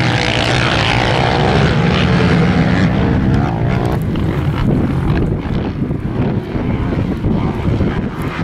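A pack of motocross dirt bikes racing uphill, many engines running hard at once and blending into one loud, continuous mix.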